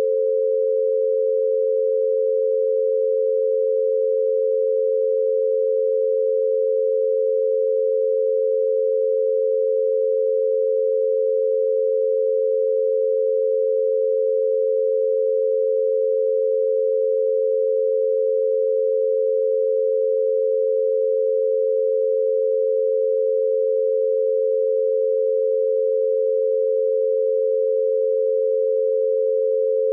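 Binaural beat: two steady pure tones a little below and a little above 500 Hz, one for each ear, set 88 Hz apart, held unchanging at constant loudness.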